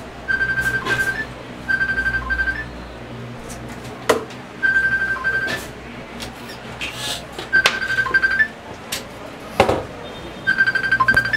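Mobile phone ringing: an electronic ringtone repeating in pulsing bursts about a second long, each ending in a short higher blip. A few sharp knocks fall between the rings.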